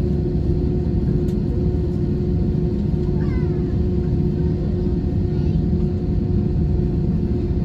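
Airbus A320 cabin noise while the airliner is on the ground before takeoff: a steady low rumble with a constant hum. A brief high-pitched chirp, rising and falling, comes about three seconds in.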